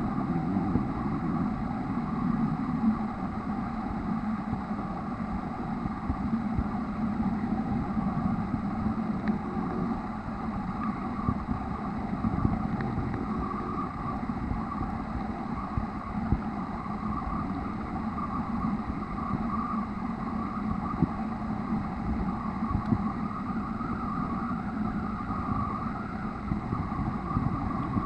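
Steady muffled underwater drone picked up by a camera filming below the surface, with a few faint clicks.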